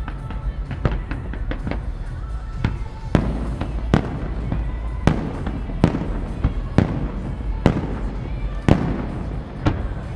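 Aerial fireworks bursting: smaller cracks in the first few seconds, then a string of sharp bangs about once a second, over a steady low rumble.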